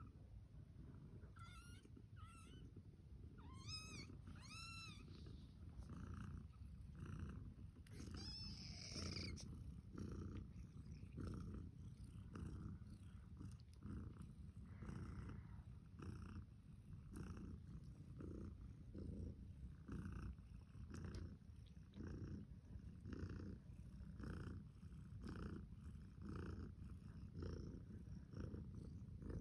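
Mother cat purring softly and steadily, pulsing with each breath a little more than once a second. A few short high-pitched squeaks sound in the first several seconds.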